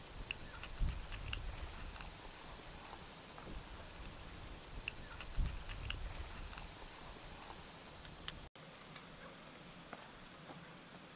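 Small clicks and rustles of hands packing a tobacco pipe with a metal pipe pick, over a high, thin call that repeats about every second and a half until about eight seconds in.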